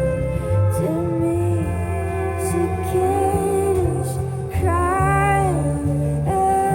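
A woman singing a slow song with instrumental accompaniment, her long held notes carrying a vibrato over steady, sustained bass notes.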